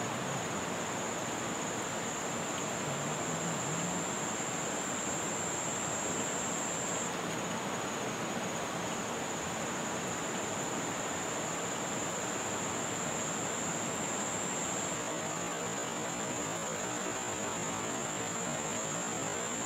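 Steady rushing of a muddy, flowing river, with a continuous high-pitched buzz running above it.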